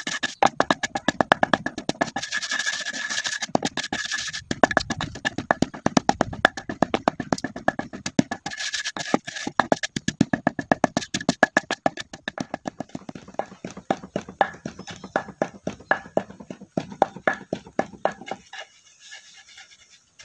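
Wooden pestle pounding in a terracotta mortar: rapid, regular knocks, several a second, as a chili-and-salt mix is ground. The strokes thin out and get quieter near the end.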